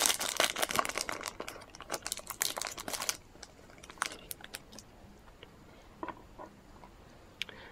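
Foil trading-card pack wrapper crinkling as it is torn open, a dense crackle for about three seconds. After that come a few light clicks and rustles as the cards are slid out of the pack.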